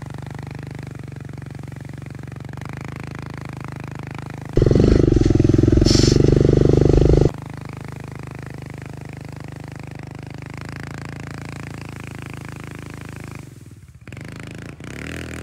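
Small four-stroke Kawasaki pit bike engine running at low, steady revs as it is worked through snow. About four and a half seconds in, a much louder rough noise sets in abruptly and cuts off nearly three seconds later. Near the end the engine drops away, then revs up with a rising pitch.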